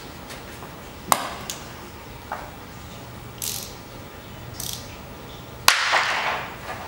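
Hand-tool work on an old motorcycle frame: a sharp metallic click about a second in and a lighter one later, two short hisses in the middle, and a louder sudden burst near the end that fades over about a second.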